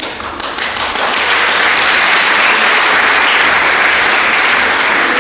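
Audience applauding: the clapping breaks out suddenly and swells to a steady, full round within about a second.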